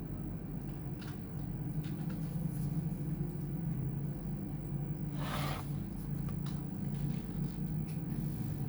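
Steady low hum with a few light clicks, and one short scraping rustle about five seconds in.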